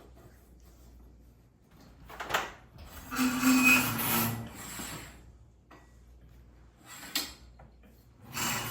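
Metal scraping and rubbing in rough bursts of about two seconds, around three seconds in and again near the end, with a couple of short knocks between, as a garage door torsion spring and its parts are worked back onto the shaft.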